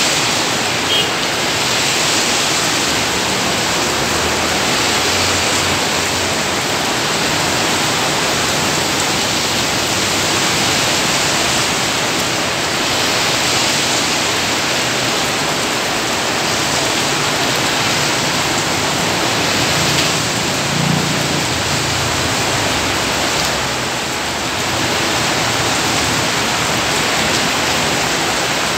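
Heavy rain pouring down, a loud, steady hiss with no letup.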